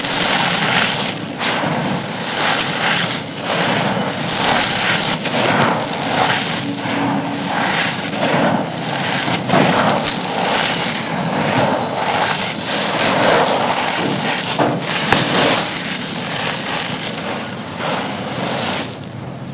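Dry, brittle concrete slab pieces being crushed and crumbled: a dense run of gritty crunches and crackles, one after another, that dies down near the end.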